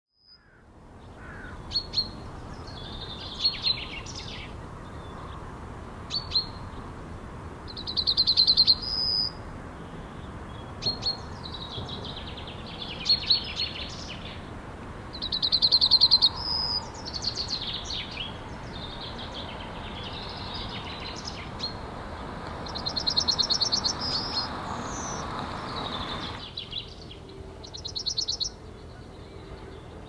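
Male yellowhammer singing: a rapid run of repeated high notes, given four times, between short high chirps. A steady background rush drops away near the end.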